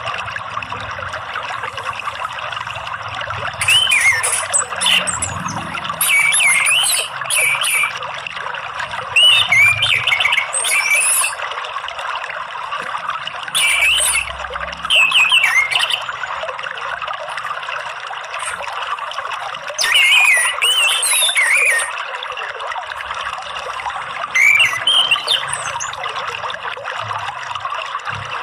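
Orange-headed thrush (anis merah) singing short, varied whistled phrases every few seconds over the steady sound of flowing water.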